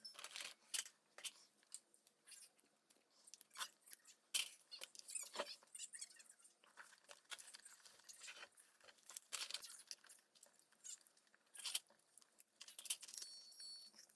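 Irregular small clicks, taps and rustles of objects being handled at close range, scattered unevenly throughout.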